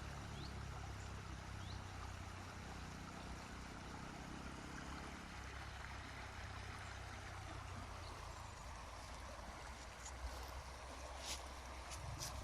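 A creek burbling and trickling steadily, with a few short high bird chirps near the start and some sharp high ticks near the end.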